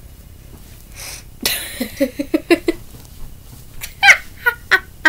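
A boy laughing: a quick run of short giggles starting about a second and a half in, then high-pitched squealing laughs about four seconds in.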